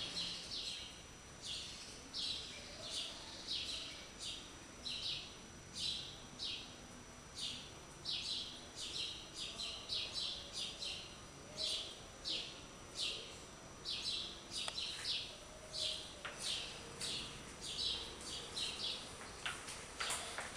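A bird chirping over and over: short high chirps, about two a second and unevenly spaced.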